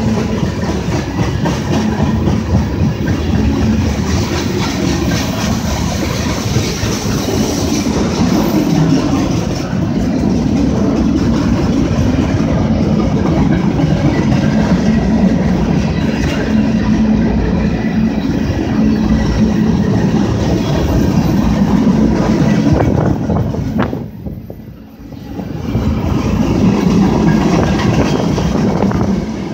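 Canadian Pacific freight cars rolling past, mostly empties: steady wheel-on-rail rumble with clickety-clack as tank cars, autoracks, boxcars and centre-beam flatcars go by. The noise drops away sharply for about a second near the end, then picks up again.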